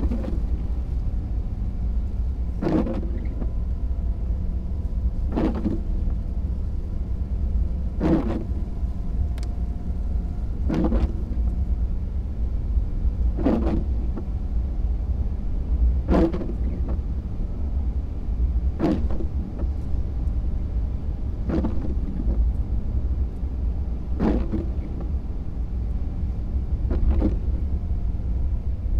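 Steady low rumble of a car's cabin and road noise on wet pavement. Windshield wipers sweep at regular intervals, a short swish about every two and a half to three seconds, ten times in all.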